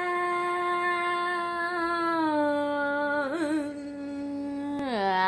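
A woman's voice holding one long sung note. The note steps down in pitch a couple of times, wavers briefly about three seconds in, and dips and slides back up near the end.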